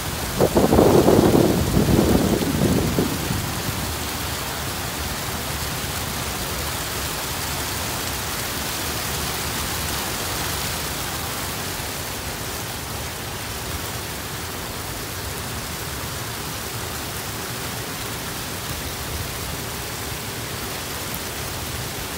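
Water spilling over a low river weir, a steady rushing hiss. Louder low buffeting rumbles over the first three seconds, then the rush settles to an even level.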